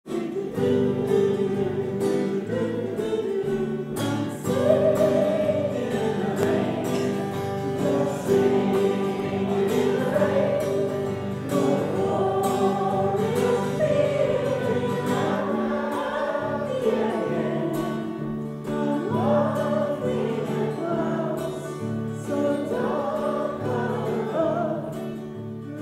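A small choir of men and women singing together, accompanied by a strummed acoustic guitar.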